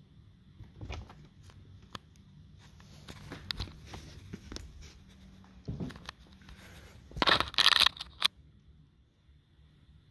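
Rustling and scraping with scattered clicks as a phone is handled and moved against the tree skirt and the branches of a Christmas tree, loudest in a dense burst about seven seconds in.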